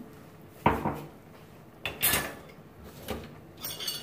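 Kitchen clatter: several separate knocks and clinks of dishes and utensils being handled and set down.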